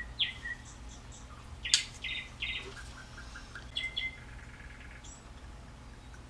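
Small birds chirping in short, high calls and sweeps through the first few seconds, with one sharp knock about two seconds in.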